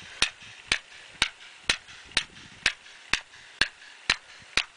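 A small hammer striking a chisel held against rock, even blows about two a second, chipping rock away from a fossil.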